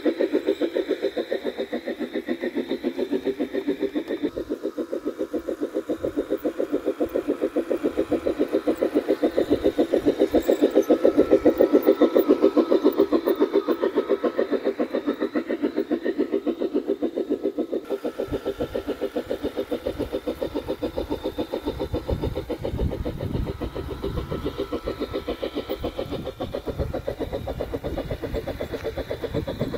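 G-scale Bachmann model steam locomotive running on its test run with a Railpro control board, making a steady, fast rhythmic pulsing as it pulls its coaches along the track.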